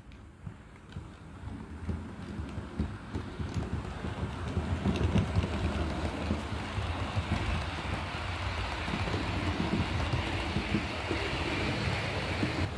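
H0 scale model train running on the layout's track: a steady low rumble of wheels and motor with many small rapid clicks from the wheels over rail joints and points, getting louder over the first five seconds and then holding.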